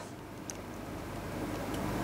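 Faint handling of a small glass liquor bottle, with a light tick about half a second in, as it is raised and a swig is taken from it; the sound grows slowly louder toward the end as the drinking begins.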